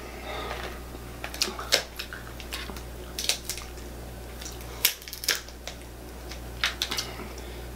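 Cooked lobster shell being cracked and snapped apart by hand: irregular sharp clicks and cracks, a dozen or so scattered through the moment.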